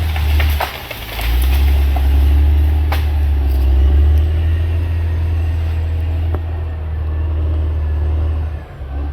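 CAT D6R XL bulldozer's diesel engine running with a heavy low rumble that dips briefly about a second in and again near the end, with a few sharp knocks in the first three seconds.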